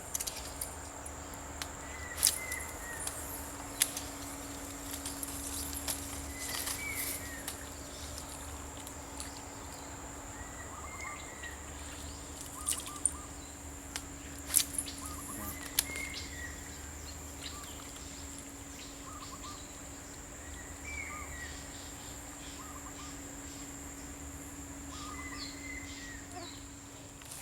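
Outdoor rural ambience: a bird repeats a short call every four to five seconds over a steady high insect buzz, with a few sharp clicks here and there.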